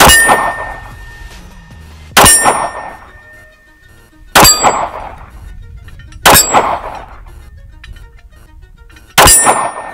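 Five shots from a Ruger LC380 .380 ACP double-action-only pistol, each met at once by the ringing clang of a steel target being hit. The shots come about two seconds apart, with a longer pause before the last, and each ring dies away over about a second.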